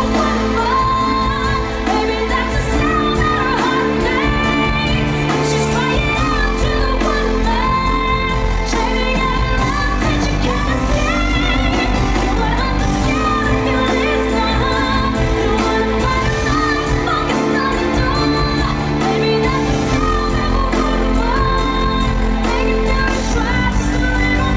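Live pop music: a woman's lead vocal sung over a full band, loud and steady throughout.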